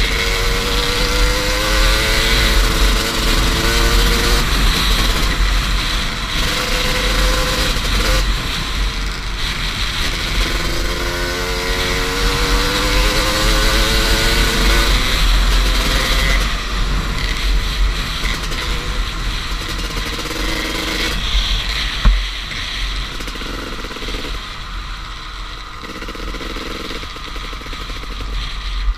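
Two-stroke dirt bike engine at high revs, its pitch climbing again and again as it pulls hard through the gears, with heavy wind rumble on the helmet microphone. A single sharp knock about two-thirds of the way through.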